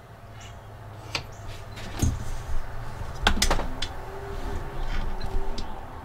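A few scattered sharp clicks and light knocks, two of them about two and three seconds in heavier with a low thump, over a low steady rumble.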